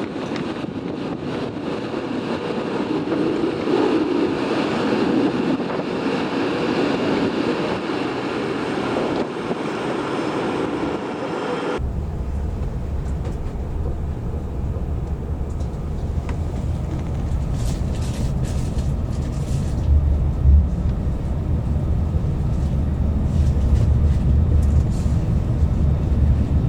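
Strong wind buffeting the microphone. About twelve seconds in, after a sudden cut, it gives way to the steady low rumble of a train running, heard from inside the carriage.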